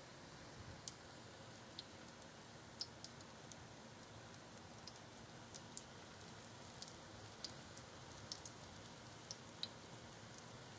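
Panko-coated eggplant patties shallow-frying in oil in a pan: a faint sizzle with scattered, irregular crackles and pops of spattering oil.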